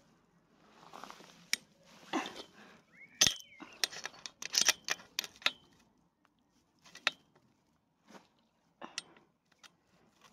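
Scattered metal clicks and clanks as parts of a rusty trampoline frame are worked by hand to get a tool or part seated, the busiest stretch a few seconds in, with a brief squeak about three seconds in.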